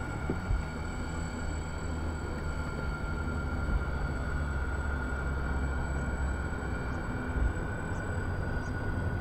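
The motors and propellers of a giant radio-controlled Hughes H-4 'Spruce Goose' model running steadily during a low flyby. They make an even high-pitched whine with a low rumble underneath.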